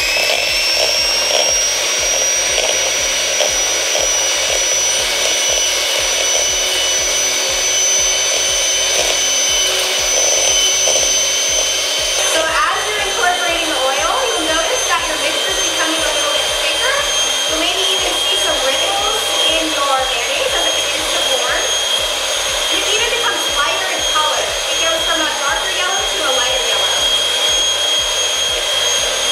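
Electric hand mixer running steadily with its beaters in the bowl: a loud motor whine that rises in pitch as it spins up at the start. It is whipping egg yolk, lemon juice and salt while oil is streamed in slowly, forming a mayonnaise emulsion.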